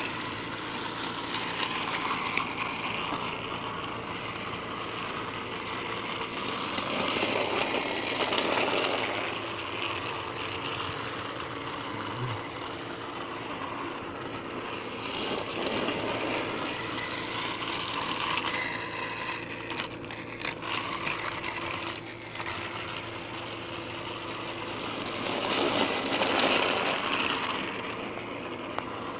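Battery-powered Plarail toy train running on plastic track: a steady motor whir with rattling, growing louder and fading again every nine seconds or so as it comes round.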